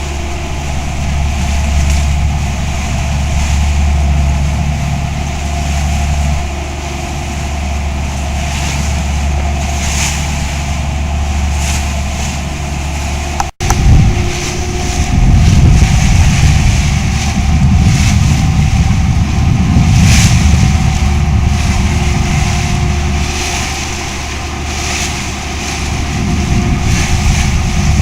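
Boat engine running steadily with the boat under way, its low hum mixed with wind buffeting the microphone. The sound drops out for an instant about halfway through, and after that the wind rumble is louder and gustier.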